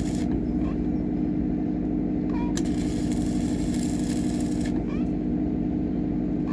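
Electric arc working the steel hull, crackling and hissing in bursts: it stops just after the start and returns for about two seconds in the middle. Under it runs a steady engine-like hum.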